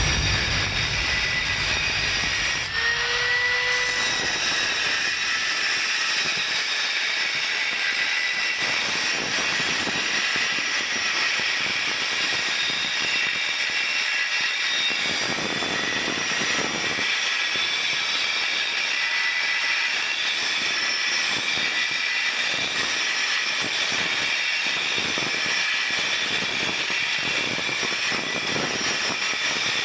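Steady machine noise with a hissing, high-pitched character, holding an even level throughout, with a faint short rising tone about three seconds in.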